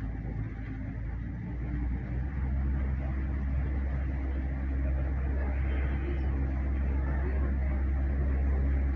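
Tour boat's motor running with a steady low hum, growing louder about two seconds in as the boat gets under way.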